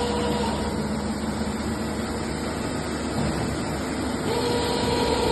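Eumach FBE CNC milling machine running, a steady mechanical hum with a whine that drops out about half a second in and comes back about four seconds in.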